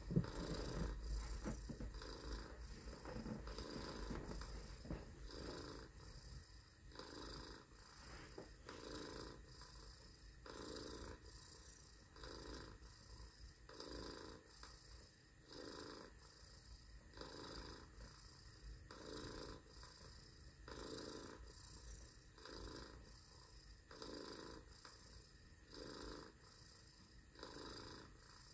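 A person imitating a cat's purr: a soft rolling purr that swells and fades with each breath, about once every one and a half seconds, a little louder in the first few seconds.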